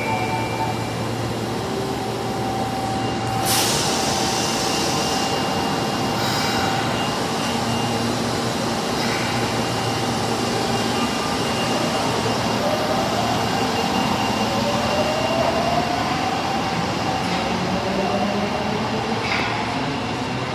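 Osaka Metro Tanimachi Line 22 series subway train running at the platform, with a brief sharp noise about three and a half seconds in. Later its motor whine rises in pitch over several seconds as it gathers speed.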